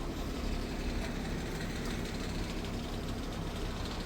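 An engine idling steadily, a continuous low hum.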